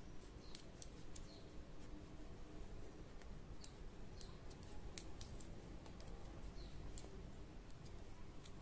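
Faint, irregular clicks of metal circular knitting needle tips tapping together while stitches are knitted.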